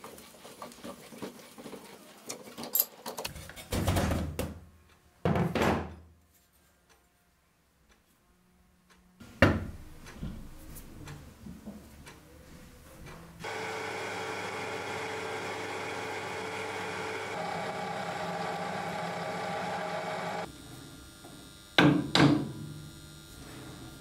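Metal workshop handling sounds: a few clunks and knocks as parts are worked on an electric motor and its pulley. In the middle a machine runs steadily for about seven seconds and stops abruptly, and a quick pair of knocks follows near the end.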